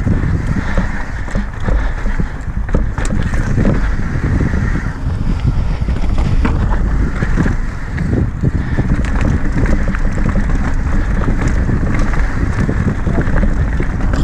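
Wind buffeting the microphone of a camera on a mountain bike descending a dry, rocky dirt trail, over tyres crunching on dirt and the frequent knocks and rattles of the bike over rough ground.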